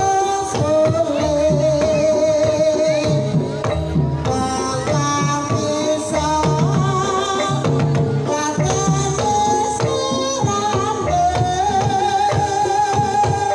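Live Banyumasan gamelan gending for tayub: a sinden (female singer) holds long, wavering melodic lines over hand-played kendang drumming.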